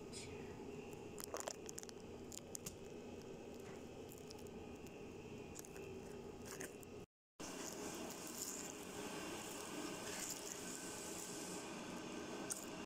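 Faint handling noise, a few light clicks and some rustling, over a steady low hum. The sound drops out completely for a moment about seven seconds in.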